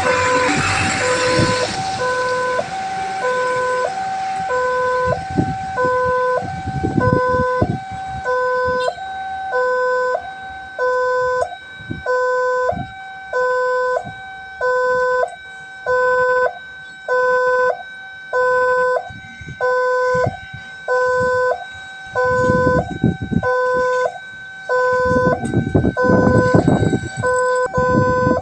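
Railway level-crossing warning alarm sounding: an electronic two-tone signal switching evenly between a low and a high note in a steady rhythm, over a constant higher tone. It warns that a train is approaching and the crossing is closing.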